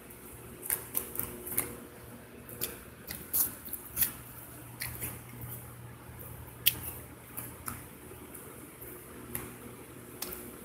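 A person chewing and biting food right at the microphone: short, sharp, irregular crunches and mouth clicks, over a steady low hum.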